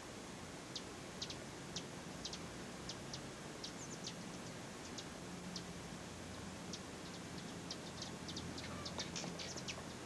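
Hummingbirds giving short, high chip notes, scattered irregularly, then coming in a quick flurry near the end.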